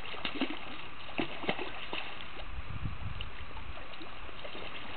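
Hooked male Atlantic salmon splashing at the surface several times in the first second and a half, over the steady rush of the river.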